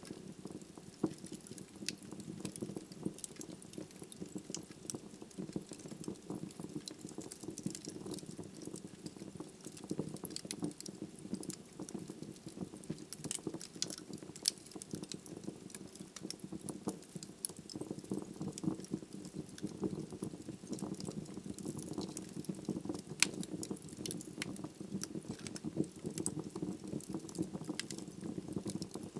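Wood logs burning in a fireplace: a steady low rush of flame with frequent sharp crackles and pops from the burning wood, one pop standing out louder late on.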